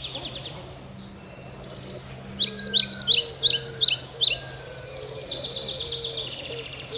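Small birds chirping and trilling, with a run of loud, sharp chirps about two to four seconds in. Under them, doves give short low coos that repeat through the second half.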